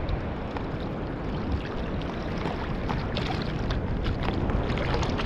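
Water sloshing around a small boat, with wind buffeting the microphone as a steady low rumble. A scatter of light clicks and taps comes in the second half.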